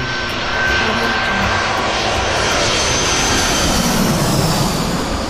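Airplane flyby sound effect: a jet's rushing noise that swells and passes, with a high whine falling in pitch in the second half.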